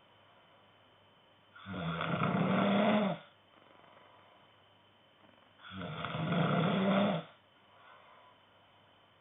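A man snoring in his sleep: two snores about four seconds apart, each about a second and a half long, with a low droning pitch and quiet breathing between them.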